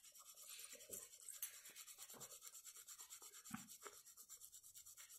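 Faint rubbing and scraping of a soaked almond being ground into a paste with a little water, with a few soft knocks.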